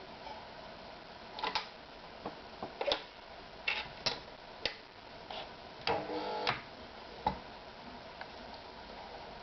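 Irregular clicks and knocks from handling a Privileg TopStar 796 sewing machine while its motor is stopped, with a brief whirring burst a little after the middle.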